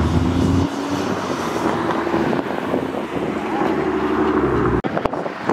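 Car engine running at low revs with a deep exhaust rumble that drops away about half a second in, leaving a steadier engine note; a brief break near the end.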